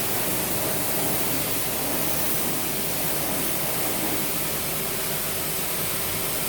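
Leadwell LTC-20BP CNC lathe running steadily: an even hiss with a faint low hum underneath, no changes or impacts.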